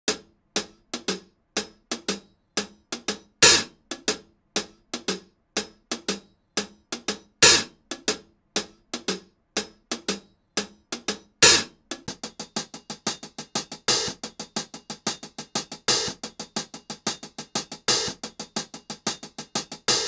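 Percussion music: a steady beat of sharp drum and hi-hat hits, with a louder accent about every four seconds. The pattern gets busier about twelve seconds in.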